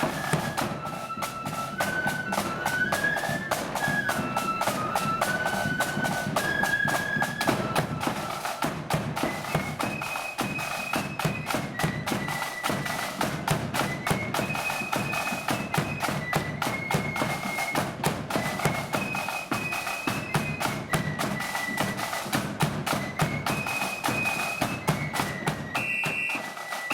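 Marching flute band playing a tune in high held notes over rapid, dense snare and bass drumming. The music ends just before the close.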